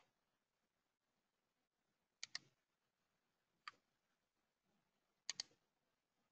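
Faint computer mouse clicks over near silence: a quick double click about two seconds in, a single click near the middle, and another double click about five seconds in.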